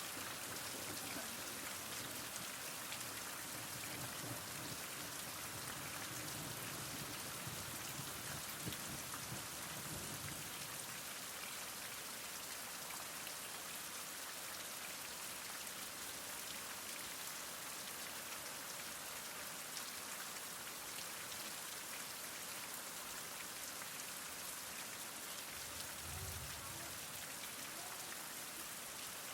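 Heavy rain falling steadily, a dense even hiss of drops on surfaces. A faint low rumble swells under it about a third of the way in and again near the end.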